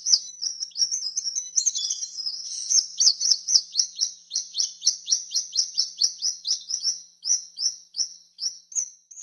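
Swallow twittering. A busy run of quick high chirps gives way to a steady series of short downward-sweeping chirps, about three or four a second, that thins out and stops near the end.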